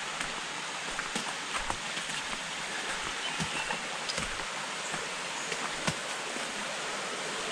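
Steady rushing of a forest stream, with scattered soft footsteps on a dirt trail.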